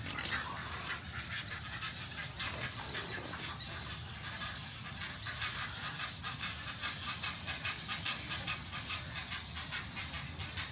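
A nesting colony of wading birds, chicks in the nests keeping up a constant rapid chattering and begging calls that grow louder about halfway through.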